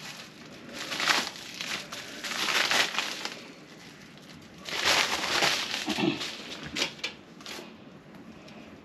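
A white plastic mailing bag crinkling and rustling as it is handled, in several bursts.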